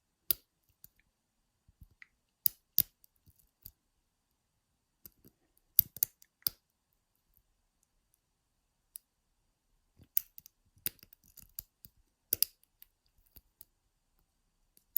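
Lock picks working the pins of a five-pin ISEO euro cylinder lock: scattered sharp metallic clicks, irregularly spaced a second or two apart, with fainter ticks between.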